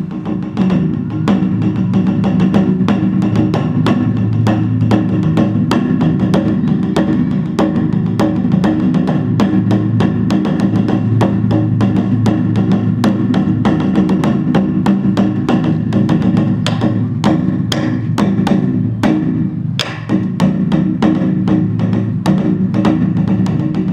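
Fast, unbroken drumming on a large Korean barrel drum (beopgo) with two sticks, striking both the skin and the wooden rim, as in the drum finale of the seungmu dance. A low ring hangs under the strokes, which thin out briefly about four-fifths of the way through.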